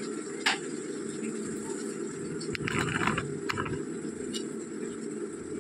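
Masala paste of onion, yogurt and nut paste frying in oil in a kadai, with a steady low sizzle and a few sharp pops and crackles, a cluster of them around the middle. It is the 'kashano' stage, the paste being cooked down until the oil separates.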